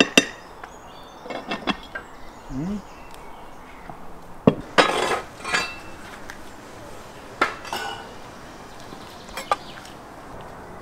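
Clinks and knocks of cookware and metal tools: a cast-iron pot being handled at the start, then a longer scrape about five seconds in and a few lighter knocks as a long-handled tool works at a brick oven.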